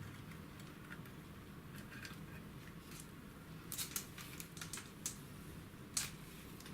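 A few light, sharp clicks and ticks of small objects being handled at a workbench, a handful in the second half with the sharpest about four and six seconds in, over a faint steady low hum.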